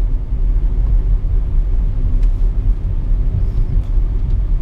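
Steady low rumble of a car's engine and road noise, heard from inside the moving car.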